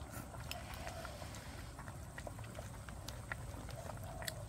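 Faint scattered light clicks and taps of chopsticks against bowls over a low, steady background hiss.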